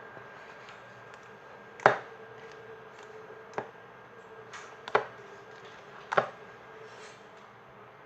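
Four sharp taps or knocks, irregularly spaced a second or two apart, the first the loudest, over a faint steady hum.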